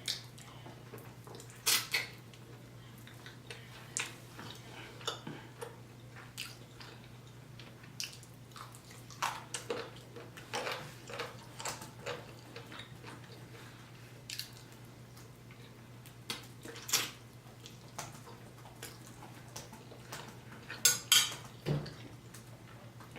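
Scattered clicks and clinks of cutlery and dishes during a meal, with a faint steady low hum underneath.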